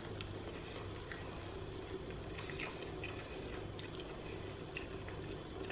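Mouth sounds of eating fried chicken wings: scattered small wet clicks, smacks and crunches of chewing and pulling meat off the bone, over a steady low hum.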